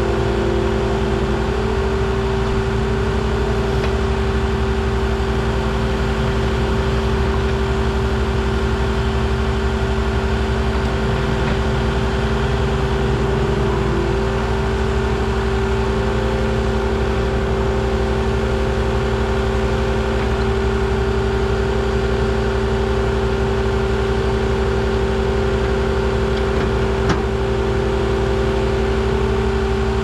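Skid steer's diesel engine running steadily at working throttle to drive the mounted firewood processor's hydraulics, with a steady tone held over the drone. One sharp knock near the end.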